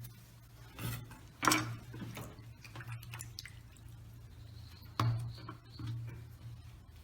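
Kitchen knife cutting an onion on a cutting board: a handful of irregular knocks and taps of the blade against the board, the loudest about one and a half seconds in and another near five seconds, over a low steady hum.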